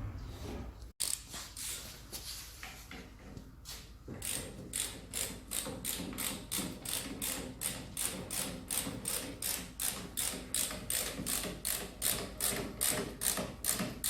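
Hand ratchet wrench being worked on the strut fasteners, first irregular, then a steady run of clicks about three a second from a few seconds in.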